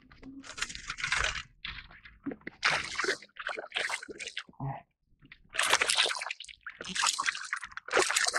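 A hooked northern pike thrashing at the surface beside the boat, splashing the water in repeated irregular bursts.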